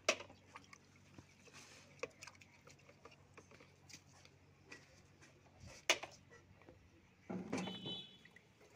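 Scattered knocks and clicks of a plastic bucket and its wire handle knocking against a tractor's bonnet as it is handled and hung there, with a short rattling scrape about seven and a half seconds in.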